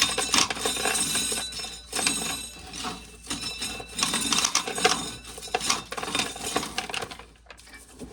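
Dry corn kernels being shelled off the cob and clattering into a bucket: a dense, irregular rattle of small hard clicks that dies down near the end.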